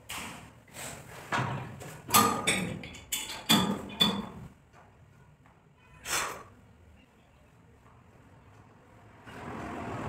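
Knocks and footfalls of a person stepping onto a padded gym bench and settling into its leg pads: a quick run of sharp knocks over the first four seconds, then one more about six seconds in.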